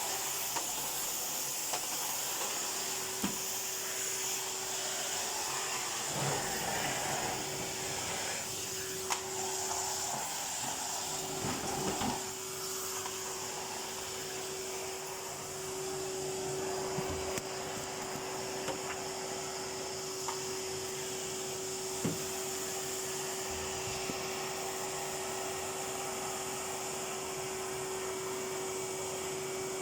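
Vacuum cleaner running steadily, its motor noise carrying a constant whine, with a few light knocks as the nozzle bumps along.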